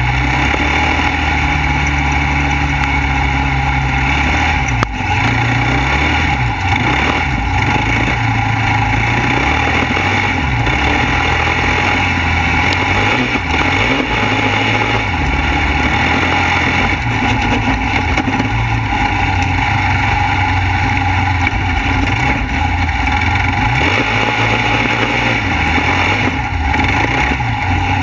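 Single-cylinder Kawasaki KLR650 engine of an off-road buggy running under way, its revs rising and falling as it drives over dirt. A single sharp click about five seconds in.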